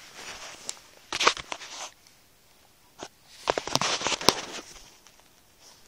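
Woven jute shopping bag rustling and crackling as it is handled with a cat inside, in two bursts with a few sharp clicks, the second burst longer.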